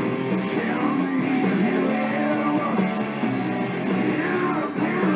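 Background rock music with guitar and a singing voice, playing steadily.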